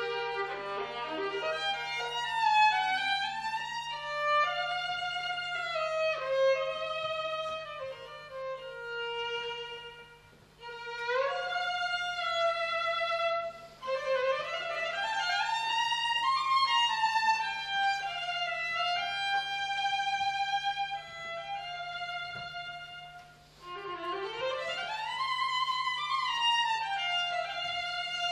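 Unaccompanied violin playing a lyrical melody in phrases, with sliding rising runs into high notes around the middle and near the end, and brief breaks between phrases.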